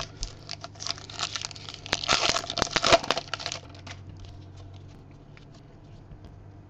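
A 2015 Topps Heritage High Number baseball card pack wrapper being torn open and crinkled in the hands. The crackling is loudest about two to three and a half seconds in, then gives way to a few soft ticks as the cards are slid out.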